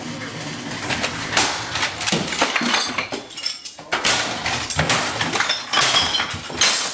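A man smashing and throwing things around a cluttered room: a rapid, irregular run of crashes and bangs, with objects clattering as they land.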